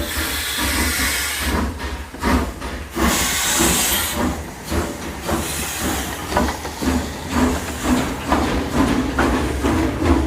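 Steam locomotive hissing steam for the first few seconds, then working with a regular chuffing beat of about two to three exhausts a second as it pulls away.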